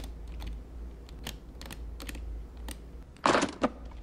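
Aluminium briefcase's combination lock wheels clicking irregularly as a finger rolls them, then a loud clack about three seconds in, with a second snap just after, as the latches spring open.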